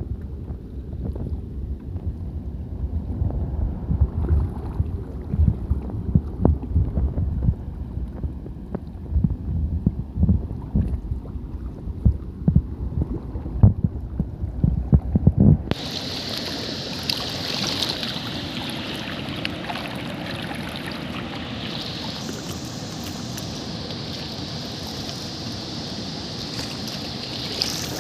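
Wind buffeting the microphone as a gusty low rumble, then about halfway through a sudden cut to the steady rushing hiss of a waterfall.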